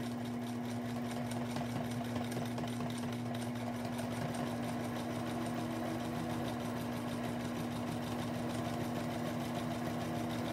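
Electric home sewing machine running at a steady speed, stitching a seam through quilt fabric: a constant motor hum with a rapid, even ticking of the needle.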